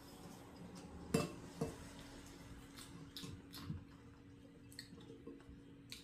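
Chopsticks clinking against a stainless-steel pot while lifting noodles: a few light knocks, the two sharpest close together about a second in, then softer ones, over a faint steady hum.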